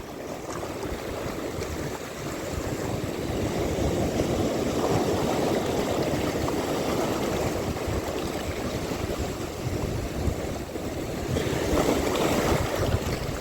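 Wind on the microphone and sea water lapping: a steady rough rushing that swells a little partway through and again near the end.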